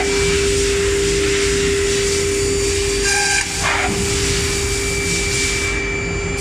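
CNC machine drilling carbon fiber: a steady spindle hum over a constant hiss, with one drilling stroke about three seconds in, a brief higher tone followed by a short rasping burst. The strokes come about every four seconds.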